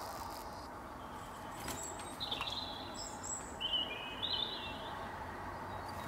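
Songbirds singing in a dawn chorus: a few short high chirps and whistled phrases between about two and four and a half seconds in, over a steady background noise.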